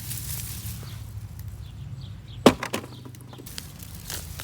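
Outdoor handling noises: scattered faint rustles and clicks, with one sharp knock about two and a half seconds in and two lighter knocks just after it.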